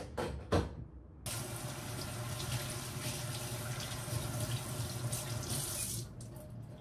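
Two sharp knocks, then a kitchen tap running steadily into the sink, starting abruptly about a second in and shut off near the end.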